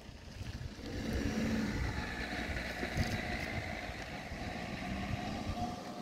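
Wind buffeting a phone's microphone: an uneven low rumble that rises and falls.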